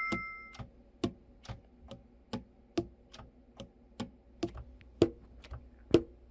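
Steady ticking, a little over two ticks a second, sharp and evenly spaced like a clock. It opens under a ringing chime that fades away within the first half second.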